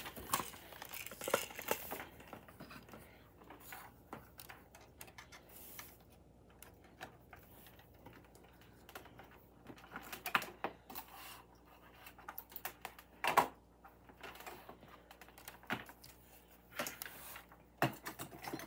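Irregular light clicks and taps of small objects being handled and set down on a desk, with a few louder knocks.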